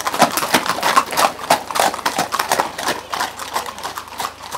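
Shod horses' hooves clip-clopping on a tarmac lane as several horses pass close by, a quick uneven patter of hoof strikes that thins out and fades towards the end as they move off.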